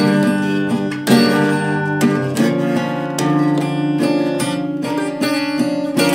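Instrumental passage of a song with no singing: a guitar, most likely acoustic, strumming sustained chords, with a new stroke about every second.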